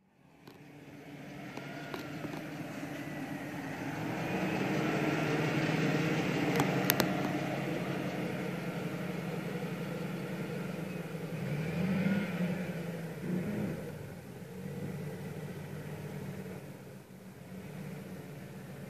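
2004 Chevrolet Silverado 1500 pickup's engine running at idle, revved briefly about twelve seconds in before settling back.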